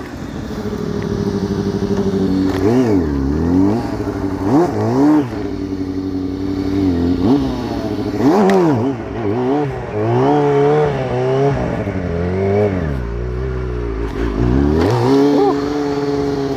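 2004 Kawasaki ZX-6R 636's inline-four engine revved up and down over and over while the bike is ridden.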